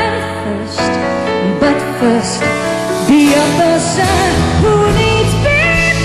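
A woman singing live into a microphone over instrumental backing, her voice sliding through quick runs of notes over steady low accompaniment.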